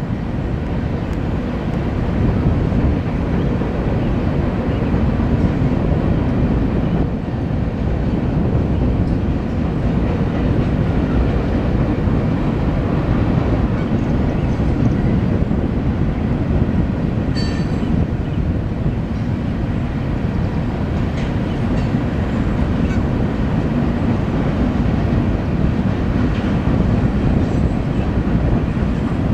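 Freight train of covered hopper cars rolling across a steel railroad bridge: a loud, steady rumble of wheels on rail with faint clicks. A brief high wheel squeal sounds just past the middle.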